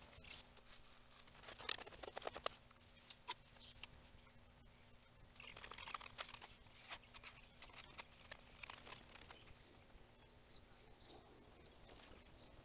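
Faint handling sounds of hand body work: a quick run of sharp clicks and crinkles about two seconds in, then a stretch of scraping around six seconds in as a spreader mixes short-strand fiberglass filler on a mixing board.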